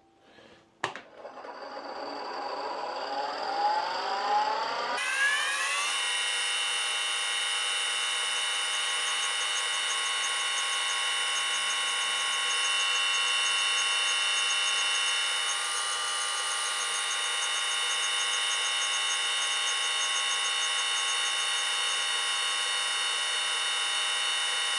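Chevalier surface grinder switched on with a click, its spindle whining up to speed over about four seconds and then running with a steady high whine. It is a little louder for a couple of seconds in the middle as the wheel grinds the end of a hardened drill-rod counterbore, throwing sparks.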